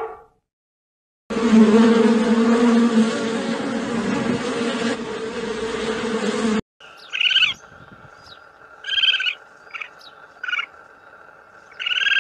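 Honeybees buzzing densely at a hive entrance: a steady buzz lasting about five seconds that cuts off abruptly. Then, after a cut, a quieter background with a handful of short, high chirping calls.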